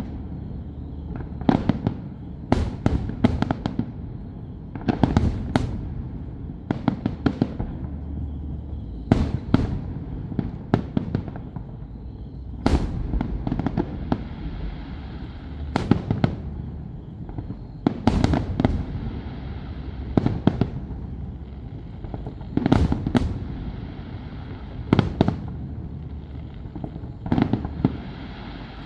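Fireworks display: shells bursting one after another, sharp bangs every second or two, some in quick clusters, over a constant low rumble.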